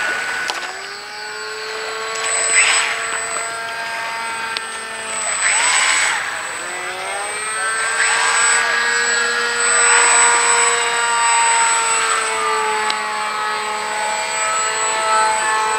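Radio-control Polaris float plane's tail-mounted motor and propeller whining in flight, the pitch sliding up and down as it passes. The sound swells louder three times, about every three to four seconds.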